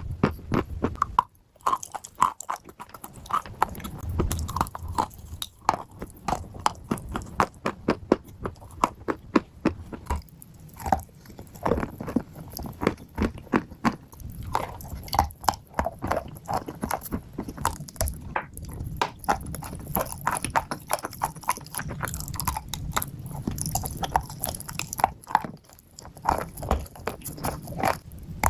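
Chewing and crunching on pieces of dry clay close to the microphone: many sharp crunches in quick, irregular succession.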